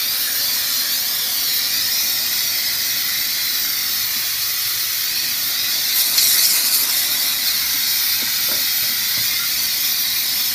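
Steam jet from the lance of a heavy-duty 8-bar steam cleaner hissing steadily as it is sprayed over a car's bodywork. It is briefly louder a little over halfway through.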